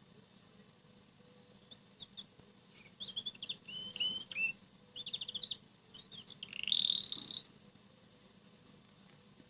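Red canary singing a soft string of chirps and short rapid trills, ending in a louder buzzy trill near the end.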